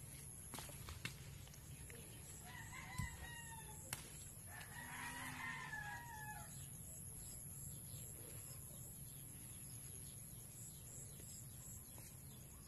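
A rooster crows twice: a short crow a few seconds in, then a longer one that falls away at the end. A few sharp clicks of kangkong stems being snapped off by hand come in between.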